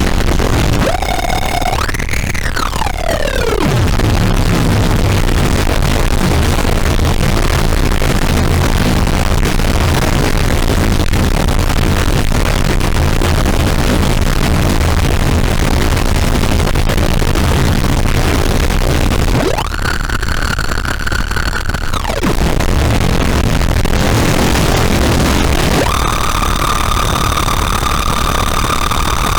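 Caustic FX Snowstorm distortion pedal generating a harsh white-noise drone: dense distorted noise over a heavy low rumble. A high tone falls in pitch about two seconds in, a steady whistling tone sounds briefly around twenty seconds, and another steady tone comes in near the end.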